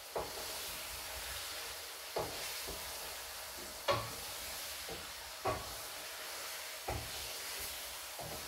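Chicken pieces frying in oil in a karahi, a steady sizzle, with a wooden spoon knocking against the pan every second or two as the pieces are stirred. The chicken is being fried so that its water cooks off.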